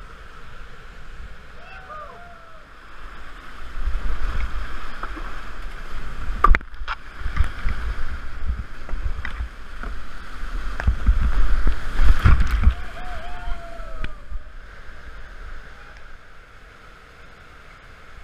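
Whitewater rushing down a steep rocky creek. From about four seconds in to about fourteen seconds in, a kayak plunges through the rapid, and water splashes and buffets against the boat-mounted camera's microphone in loud, choppy gusts, then the sound eases back to a steady rush.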